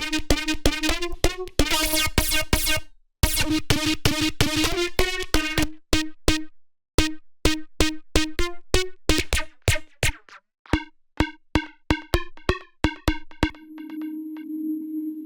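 Synthesizer notes repeating on one pitch, played through an Ableton effect rack: dense at first, then shorter, clipped notes a few per second, and about 13 seconds in a single held tone takes over.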